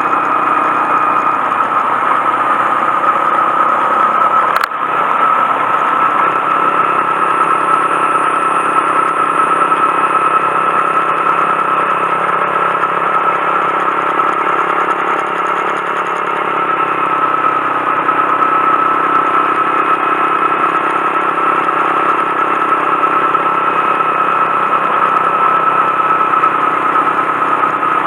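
Honda Monkey 125's single-cylinder engine running steadily under way, with one short sharp click about four and a half seconds in and a slight change in tone a little past halfway.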